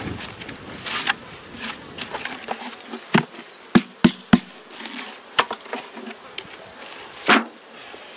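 Honeybees buzzing, broken by sharp knocks and clatters: a quick string of them between about three and four and a half seconds in, and a louder one near the end.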